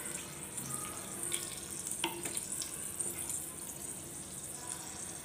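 Whole spices (bay leaf, cardamom, cinnamon and cloves) sizzling quietly in hot mustard oil in a pan, with a couple of faint clicks.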